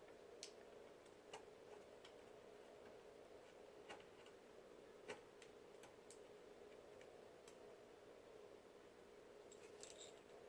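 Near silence over a faint steady hum, broken by a handful of faint, scattered clicks, with a small cluster near the end: a screwdriver and tiny screws being worked into a laptop screen assembly.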